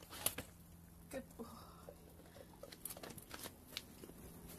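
Faint, scattered clicks and light knocks of a folding walking stick against paving slabs as a dog picks it up in its mouth and it is handed over.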